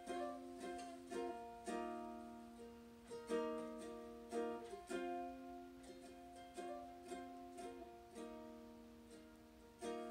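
Ukulele strummed solo without singing: chords struck and left to ring, a new strum every half second to second, with the chord changing every few strums.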